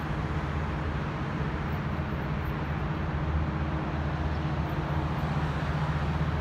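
Steady low diesel drone of an approaching Metrolink train led by an F125 locomotive, an even hum over a light outdoor rush of traffic.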